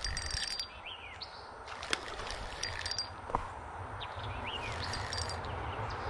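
Outdoor creek ambience: birds chirping and trilling over a steady hiss, with two sharp clicks and a low rumble that builds near the end.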